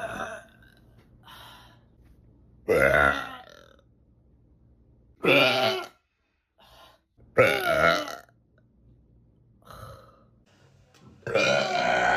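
A woman burping: four long, loud burps, one every two to three seconds, each falling in pitch.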